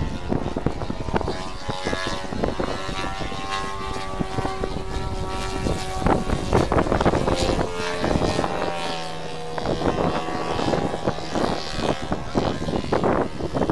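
Engine of a radio-controlled model Christen Eagle biplane running in flight, its propeller note shifting up and down in pitch as the plane manoeuvres.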